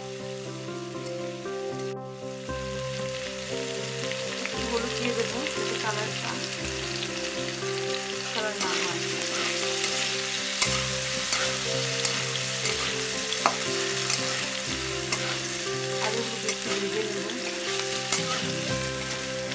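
Diced potatoes sizzling as they fry in hot oil in a metal kadai, stirred with a metal spatula that scrapes and knocks against the pan now and then; one sharp scrape stands out about thirteen seconds in.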